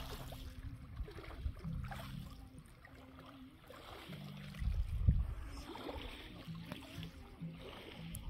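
Small waves lapping softly on a pebble shore, with wind gusting on the microphone at the start and again about five seconds in.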